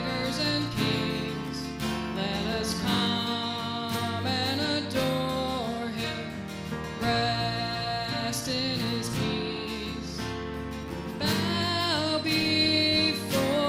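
Music from a worship song, with strummed acoustic guitar under a wavering melody line.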